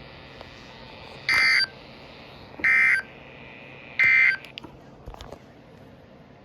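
Emergency Alert System end-of-message signal: three short buzzy bursts of SAME digital data tones, about a second apart, closing a tornado warning broadcast. A few faint clicks follow.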